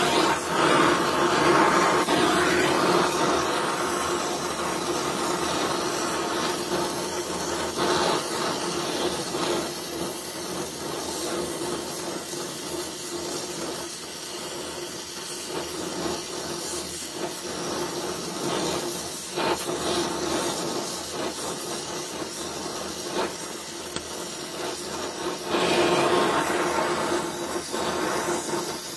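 Small gas welding torch (Donmet 132A micro) burning with a steady hissing flame as a pipe is welded. The hiss is louder in the first few seconds and again near the end.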